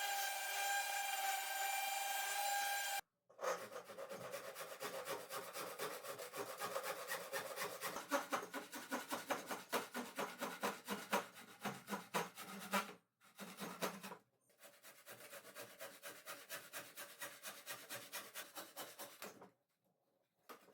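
Hand tool working wood with quick back-and-forth strokes, about three a second, like sawing or rasping, pausing briefly twice and stopping near the end. A steady humming tone fills the first three seconds and cuts off suddenly.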